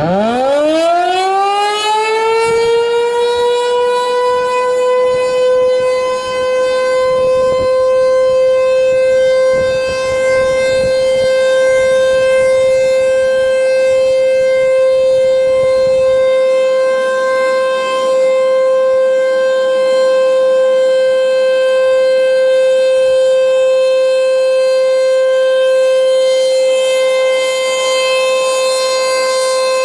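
Tornado warning siren winding up during a test. Its pitch rises over about two seconds, then it holds one steady, loud tone.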